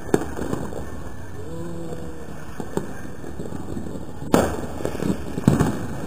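Scattered firecracker and firework bangs: a sharp one just after the start, a single pop near the middle, then a cluster of several bangs from about four seconds in, the first of them the strongest.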